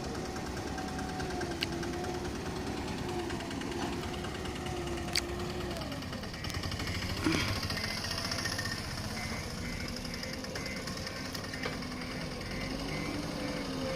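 Diesel engines of a backhoe loader and tractor running under changing load, the engine note wavering, dropping about six seconds in and rising again near the end. A few short sharp knocks break in, the loudest about seven seconds in.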